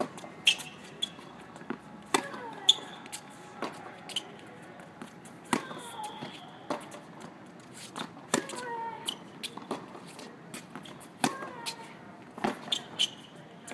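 Tennis balls struck by rackets and bouncing on a hard court in a baseline rally: sharp pocks every second or two, several of them followed by a short tone falling in pitch.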